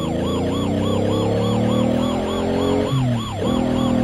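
Fast warbling siren, its pitch rising and falling about four times a second, over a low engine-like drone that sinks slowly in pitch and then holds steady: a police siren sound effect for the toy police quad bike.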